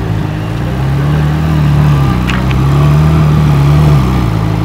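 Ferrari 458 Italia's V8 running at low revs, close to idle, as the car creeps along, its pitch rising and falling a little. Two short clicks come a little over two seconds in.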